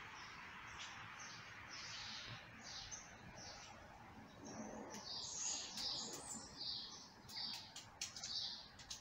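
Birds chirping, short high calls repeating about twice a second and coming thicker after about four seconds, over a steady background hiss, with a few sharp clicks near the end.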